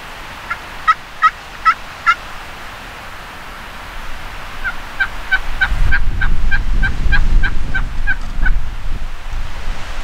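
Two runs of turkey yelps. There are five quick yelps in the first two seconds, then a longer, evenly spaced run of about a dozen yelps at about three a second, from just before five seconds to past eight. From about four seconds in, wind noise on the microphone grows into a loud low rumble.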